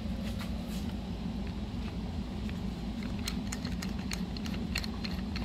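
A steady low hum runs under a scatter of small clicks and knocks, which come mostly in the second half: a camera being handled and repositioned on its mount.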